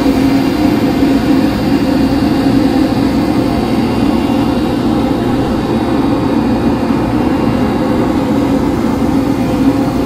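Large boat engine running with a steady, loud drone and a rushing wash of noise over it.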